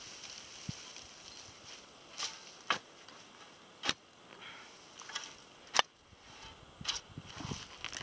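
Dry weeds and roots being pulled by hand out of freshly dug garden soil: short rustling and tearing sounds, with two sharp clicks about four and six seconds in.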